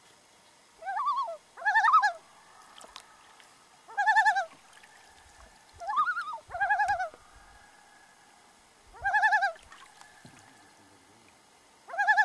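Common loons giving short, quavering tremolo calls, about seven of them, some in quick pairs, a second or more apart.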